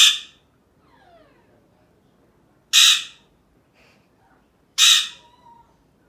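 Alexandrine parakeet giving three loud, harsh squawks about two seconds apart, with faint falling chirps between them.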